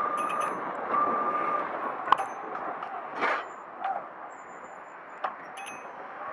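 Razor electric mini dirt bike being ridden: a steady electric motor whine for the first second and a half over a constant rushing noise of tyres and wind. There are a few sharp knocks as it rolls over bumps in the paving, one about two seconds in and one about five seconds in.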